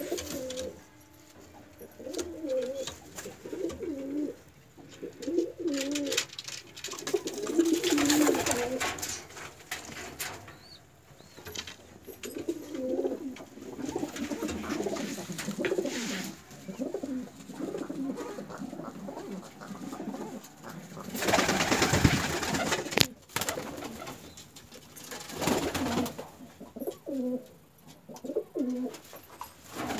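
Domestic pigeons cooing over and over, low warbling coos that rise and fall. About 21 seconds in, a loud rustling burst lasts a couple of seconds.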